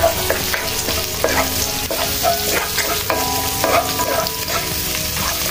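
Onion and whole spices frying in oil in a stainless-steel honeycomb wok, sizzling steadily while a wooden spatula stirs and scrapes them around the pan in repeated strokes.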